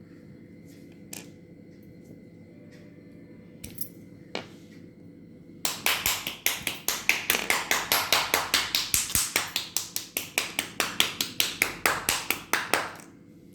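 Handling sounds from unboxing a set of sketch pens: a few scattered light taps, then about seven seconds of fast, regular clicking and rattling, five or six strokes a second, which stops suddenly near the end.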